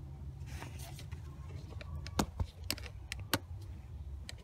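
A handful of sharp clicks and light knocks from parts and tools being handled during radiator reinstallation work, mostly around the middle, over a steady low hum.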